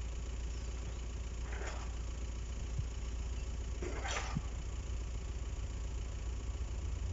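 A steady low engine rumble, with two short hissing sounds about one and a half and four seconds in, the second louder.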